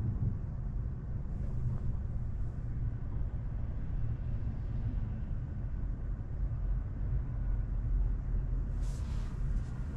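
Road and tyre noise heard inside a moving Tesla Model 3's cabin, a steady low rumble with no engine note, since the car is electric. A brief rush of hiss joins it near the end.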